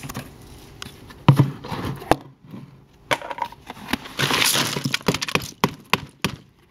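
Vegetable and fruit scraps tipped from a plastic bucket into a plastic trash-can compost bin: a run of knocks and clatters as pieces land and the bucket hits the bin, the sharpest about a second in, and a longer noisy spill of scraps around four to five seconds.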